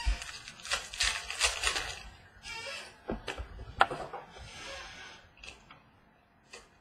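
Trading cards being handled and flipped through by hand on a wooden table: quick rustling and flicking of card stock with irregular sharp clicks as cards are laid down. The handling is busiest in the first couple of seconds and dies away near the end.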